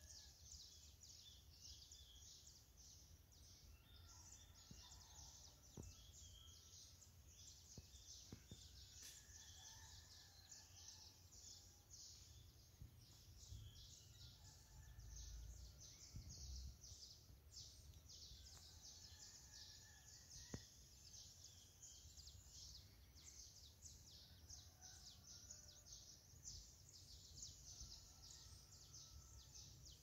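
Faint dawn chorus of many birds chirping and calling at once: a dense stream of rapid high chirps, with scattered short whistled notes, over a low background rumble.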